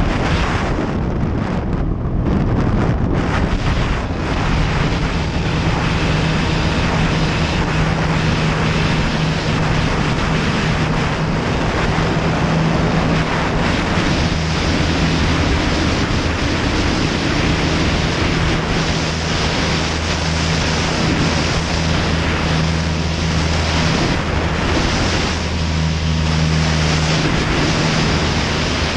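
Heavy wind noise on a microphone mounted on the wing strut of an Ikarus C42 ultralight. Underneath it the engine and propeller run steadily at high power during takeoff and climb, with the steady engine tone settling in about four seconds in.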